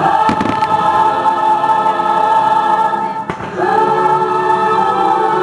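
Fireworks show soundtrack: a choir singing long held chords over orchestral music, changing to a new chord about three and a half seconds in. Short sharp firework bangs cut through it, one just after the start and another about three seconds in.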